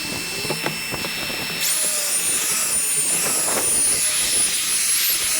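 A motor-driven power tool running with a steady hiss and a thin whine. About a second and a half in, the sound changes abruptly to a louder hiss with a higher, slightly wavering whine.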